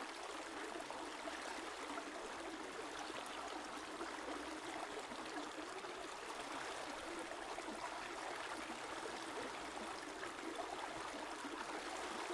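River water flowing over stones, a steady, constant babble.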